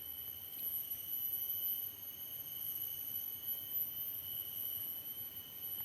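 Steady, high-pitched droning whine of insects, with a couple of fixed tones held without a break, over faint low background noise. It cuts off abruptly at the very end.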